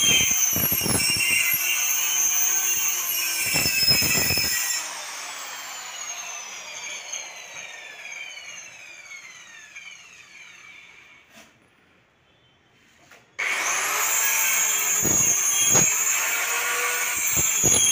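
A high-speed power tool motor with a steady high whine, switched off about five seconds in and winding down in falling pitch to quiet. It is started again about thirteen seconds in, spinning up and running steadily.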